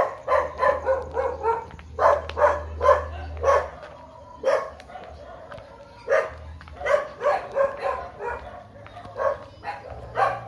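A dog barking in quick runs of several barks, with short pauses between the runs.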